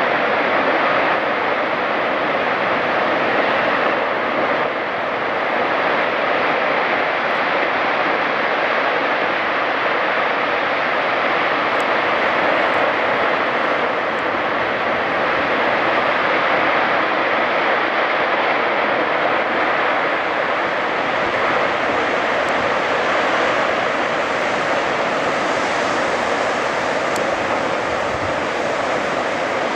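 Steady roar of giant icebergs collapsing into the sea, with churning ice and water; the hiss brightens in the last third as the waves they set off wash over the shore rocks.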